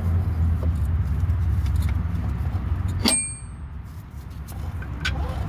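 Metal bolt and wrench handling at a shock absorber mount: a sharp metallic clink about three seconds in that rings briefly, and a few lighter clicks near the end, over a low steady hum that fades after the clink.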